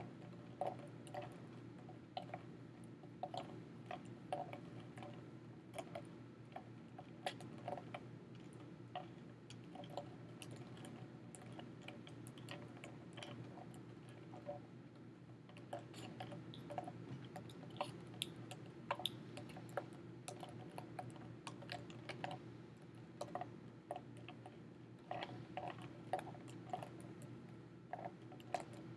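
Ice chunks clicking and knocking irregularly against a temperature probe as it stirs ice water in a foam cup, over a low steady hum.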